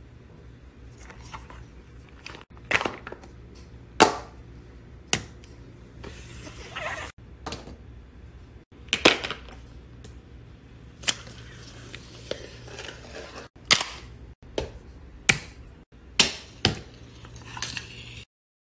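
Plastic fidget toys being played with: a string of sharp snaps and pops at uneven intervals, roughly one every second or two, with a few abrupt drop-outs between short clips.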